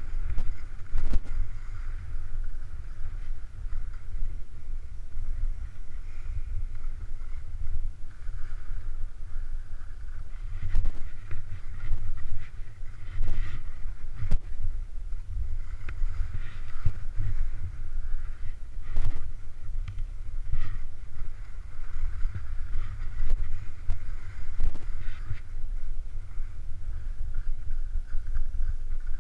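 Wind buffeting a moving action camera's microphone as the rider descends through snow, with the hiss and scrape of edges sliding on snow. A few sharp knocks break in, around a second in and again around the middle.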